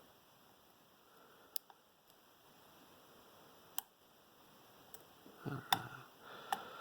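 A few faint, sharp isolated clicks of a lock pick working the pins inside an Arrow mortise cylinder, with a short stretch of light scraping near the end.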